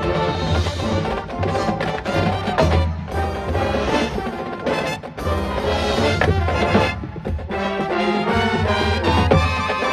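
Drum and bugle corps playing live: a brass line of horns holding full chords over heavy low brass, with marching percussion and front-ensemble mallet keyboards.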